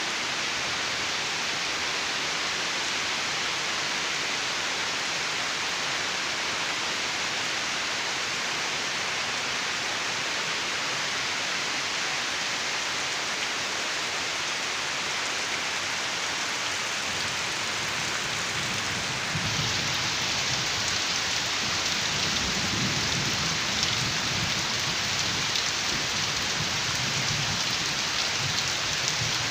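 Heavy rain falling steadily, an even dense hiss. About two-thirds of the way through it gets a little louder and an uneven low rumble comes in beneath it.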